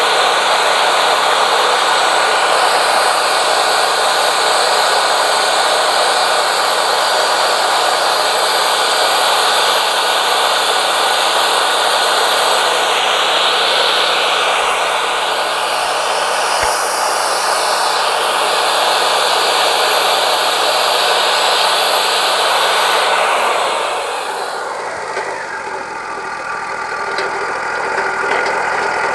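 Wood-Mizer LT40 Wide band sawmill cutting through a knotty yellow pine cant, its engine running steadily under load with the dense hiss of the blade in the wood. About 24 seconds in, the cut ends: the sound drops, the engine pitch falls, and the mill runs on more lightly.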